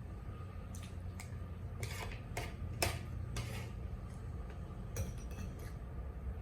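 Spoon and fork clinking and scraping against a plate during a meal: about seven light, separate clinks, the sharpest near the middle, over a low steady hum.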